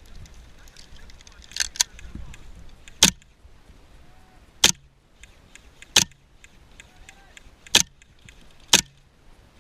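Airsoft gun firing single shots, seven sharp cracks in all, the first two in quick succession and the rest spaced one to two seconds apart.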